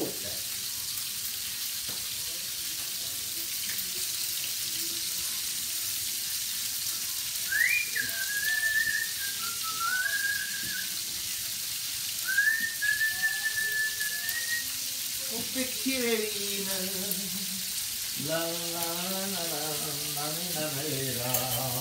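Food sizzling steadily as it fries in oil in a pan. A man whistles a tune through the middle of it, then sings a wordless melody near the end.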